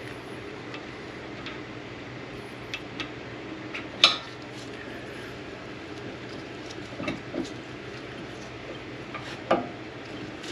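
Metal tools and brake parts clinking and clanking as they are handled and set down, with a sharp clank about four seconds in and another near the end, over a steady background noise.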